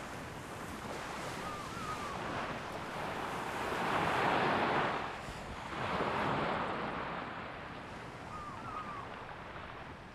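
Sea surf washing onto a sandy beach, with two waves swelling and breaking about four and six seconds in.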